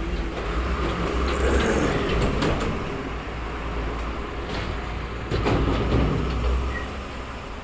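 Low rumble of a motor vehicle engine running close by, swelling twice and easing off. A few sharp clicks sound over it as a screwdriver turns the drive gears of an opened motorcycle speedometer.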